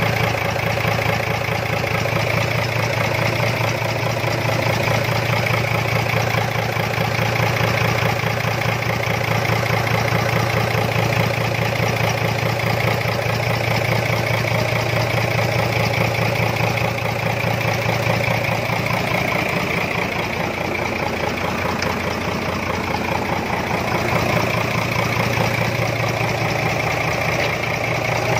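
Mitsubishi Fuso 6D15 inline-six diesel engine idling steadily.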